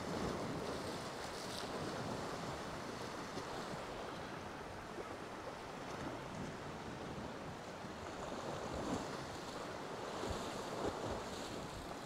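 Sea waves washing and breaking against shoreline rocks in a steady surf, with wind buffeting the microphone and a few soft bumps near the end.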